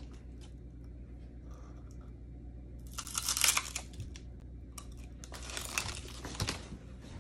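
Crisp grilled seaweed roll being bitten and its plastic snack packet crinkling, in short noisy bursts about three seconds in and again near the end, with quiet between.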